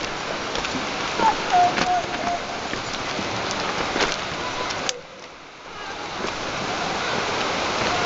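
Steady rush of flowing water with a few sharp clicks. The rush drops away suddenly about five seconds in and swells back a second or so later.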